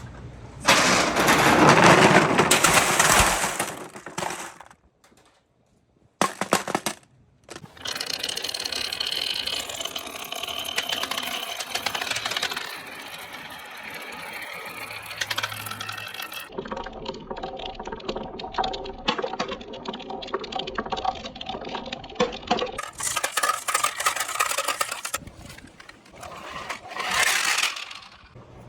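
Balls rolling and clattering down marble-run slopes, with rapid clicks and knocks of hard balls on wood and track. The sound changes abruptly several times, with a brief near-silent gap about five seconds in.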